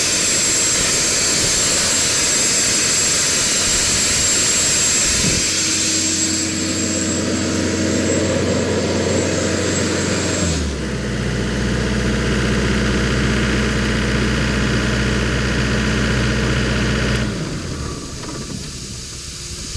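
Atlas Copco air compressor running, with a loud rush of air and a high whine that fade out over the first several seconds. The engine then drops to a lower, steady idle about ten seconds in and shuts down near the end.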